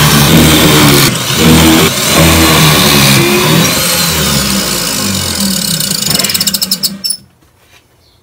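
Benchtop pocket-hole machine's motor running loud while its drill bit bores pocket holes into 3/4-inch plywood, the hum swelling with each cut about once a second. It is switched off and spins down about seven seconds in.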